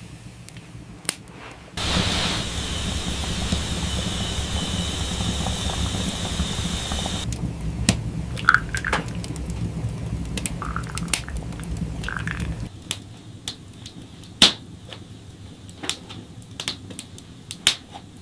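Water running for about five seconds, cutting off abruptly, then scattered light clicks and knocks.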